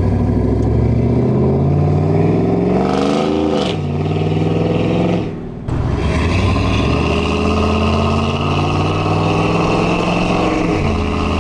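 A GMC pickup truck's engine and exhaust pulling hard as the truck accelerates, heard from inside the cab. The engine note climbs steadily and falls back at each gear change.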